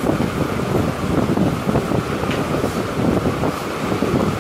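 Steady low rumble of moving air buffeting the microphone.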